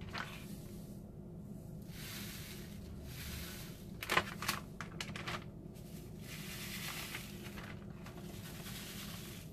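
Plastic zip-top bags crinkling and rustling as a hand works in them, with sharper crinkles about four to five seconds in. Through the later seconds, salt pours from a canister into the bags as a steady soft hiss.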